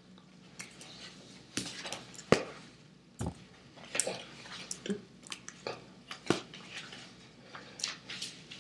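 Hands slapping, clapping and brushing against each other and the body while signing in sign language, heard as scattered short slaps and clicks, the sharpest about two seconds in, along with wet mouth and lip smacks from the signer.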